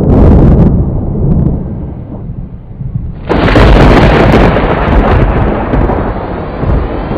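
Thunder: a deep rumble fading over the first few seconds, then a sudden loud clap about three seconds in that rolls away slowly.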